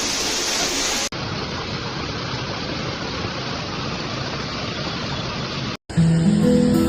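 A steady rushing noise that changes character at an edit cut about a second in. After a brief dropout near the end, music begins.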